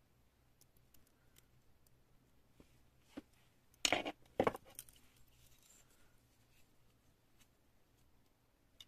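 Small metal clicks from pliers and a split key ring being handled, with a brief cluster of louder clinks and knocks about four seconds in.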